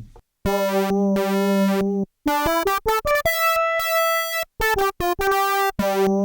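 Korg opsix FM synthesizer playing a bright lead line. A held low note comes first, then a quick run of short notes climbs to a held higher note, and near the end more short notes lead back to a held low note.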